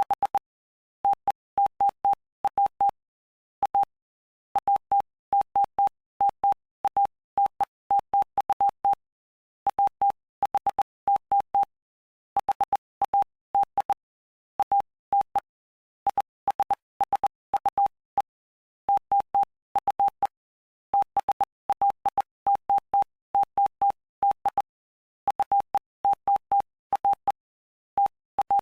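Morse code sent as a single steady beep tone, keyed in dots and dashes with short gaps between letters and longer pauses between words. It spells out the text of Mark chapter 5.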